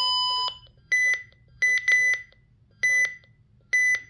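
RadioShack 12-259 weather alert radio giving key beeps as its buttons are pressed: one longer, lower beep at the start, then five short, higher beeps, two of them in quick succession.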